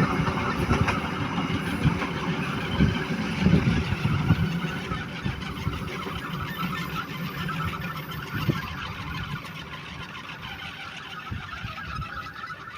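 Train rolling past and moving away: a steady rumble that fades gradually, with a few sharp knocks in the first few seconds.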